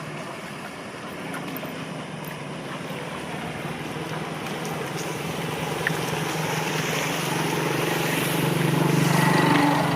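An engine running with a steady hum over a broad rushing noise, growing gradually louder toward the end.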